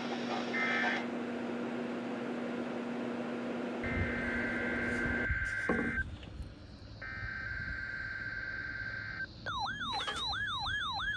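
Emergency Alert System SAME header data bursts: two buzzy two-tone data squawks a second apart. About a second after the second one, a fast wavering, siren-like alert tone starts and repeats several times a second.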